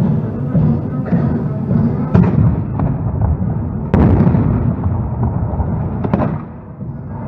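Blank black-powder gunfire from reenactment cannon and muskets: several sharp reports, the loudest about four seconds in and a quick pair near the end, over continuing drum-led music.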